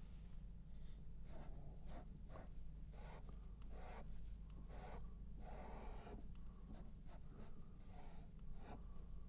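Faint, short scrubbing strokes on a painted canvas, about two a second, with one longer stroke around the middle, as paint is worked on and wiped off.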